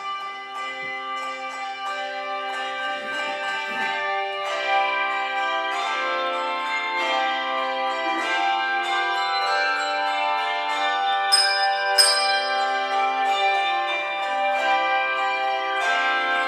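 A handbell choir ringing a piece: many handbells sound overlapping chords, each note ringing on. The music grows louder over the first few seconds, with two sharp, bright accents about 11 and 12 seconds in.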